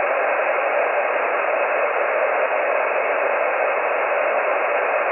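Steady hiss of HF band noise from a ham radio transceiver's speaker, tuned to the 20-metre band on single sideband with no station coming through. The hiss is narrowed to the receiver's voice passband, with nothing above it.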